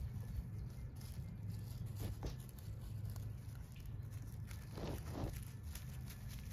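Footsteps crunching and rustling through the forest floor, many small crackles, over a steady low hum.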